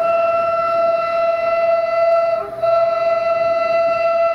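Horn of a CFR Marfă 060-DA (LDE2100) diesel-electric freight locomotive sounding one long, steady single-note blast that starts abruptly and dips briefly about halfway through.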